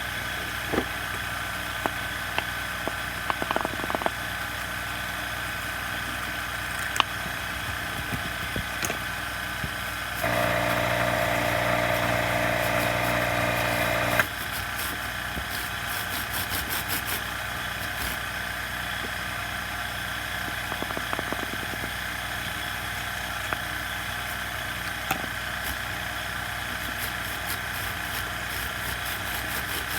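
Stihl MS170 two-stroke chainsaw engine idling steadily, with a few light clicks early on. About ten seconds in it is revved up for about four seconds, then drops back to idle.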